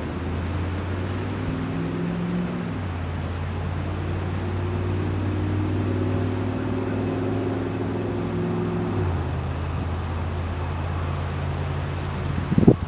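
High-voltage fractal wood-burning rig humming steadily as current burns a branching path through plywood, the hum's pitch shifting a couple of times. A sharp pop near the end.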